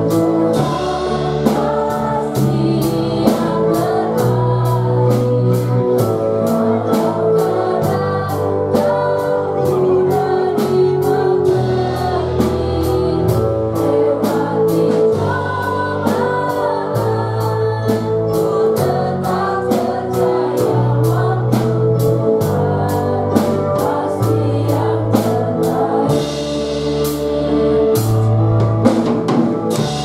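Live worship band playing a gospel song: a young woman sings the lead over a drum kit, keyboard and electric bass, with a steady cymbal beat.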